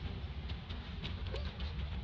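Outdoor ambience: a steady low rumble with faint scattered ticks and rustles.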